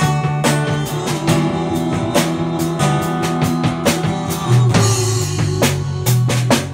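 Live band playing a blues-rock song: a drum kit keeping a steady beat, a walking bass line and acoustic guitar, with women's voices singing along.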